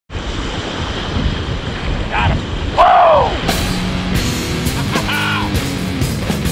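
Rock intro music. It has a few swooping notes that rise and fall, the loudest about three seconds in.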